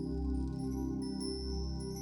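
Soft ambient background music with sustained tones over a low drone and light high chiming notes.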